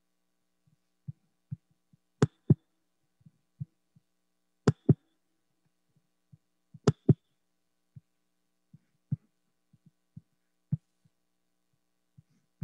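Scattered thumps and knocks. The loudest come as three double knocks, each pair about a quarter second apart and the pairs about two and a half seconds apart, with fainter single thumps in between.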